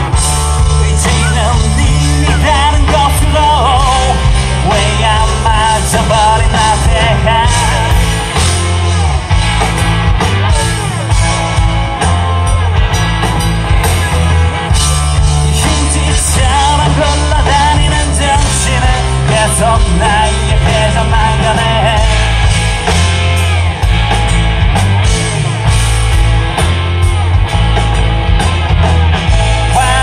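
Live rock band playing through a loud stage PA: electric guitar, bass guitar and drum kit, with a lead vocal singing over them in stretches.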